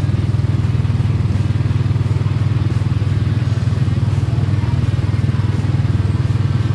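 Small engine of an amusement-park antique ride car running steadily, a constant fast chugging rumble.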